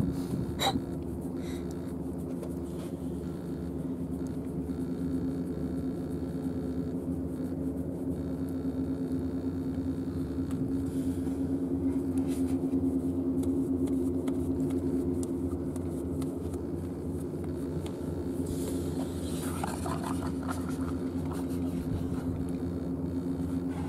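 Steady engine hum at a constant pitch, with no rise or fall, and a brief hiss near the end.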